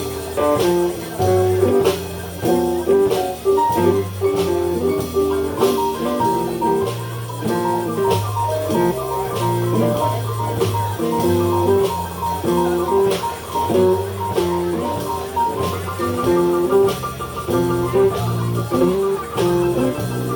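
Live blues band playing an instrumental break between vocal lines: electric guitar over bass and drums, keeping a steady beat.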